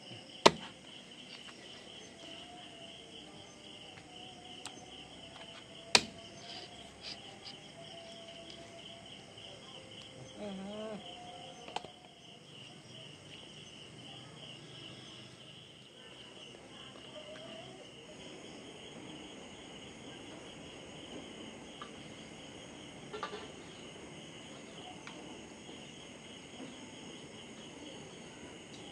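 Night insects chirping in a steady, pulsing chorus. A large knife chops through raw chicken onto a wooden block a few times, sharply just after the start and loudest about six seconds in, with lighter knocks after.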